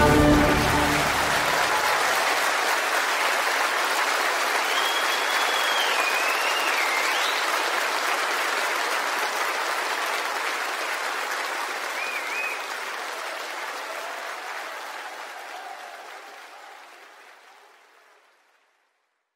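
Concert audience applauding after the last chord of an orchestral waltz; the clapping thins and fades out near the end.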